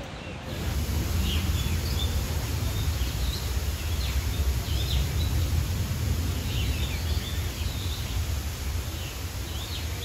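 Steady rushing of an aviary waterfall, starting abruptly about half a second in, with short, high chirps from small birds scattered over it throughout.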